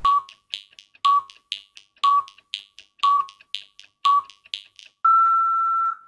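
Film-leader countdown sound effect: a short beep once a second, five times, each with a sharp click and another click halfway between. It ends in one long steady beep, a little higher in pitch, held for about a second.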